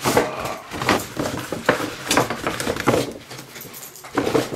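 Paper shopping bag rustling and crinkling as a shoe box is pulled out of it. There are about half a dozen sharp crackles and knocks from the bag and box.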